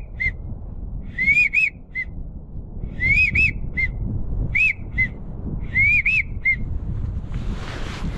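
Duck call whistle blown in four repeated phrases, each two rising-and-falling whistles followed by one or two short peeps, calling to pintails and teal. Low wind rumble underneath, and a brief rustle near the end.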